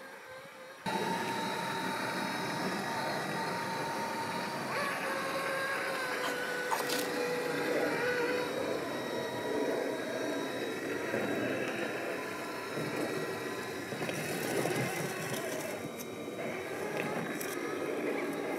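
Axial SCX6 1/6-scale RC crawler's electric motor and geared drivetrain whining steadily as it crawls over rock, the sound starting suddenly about a second in.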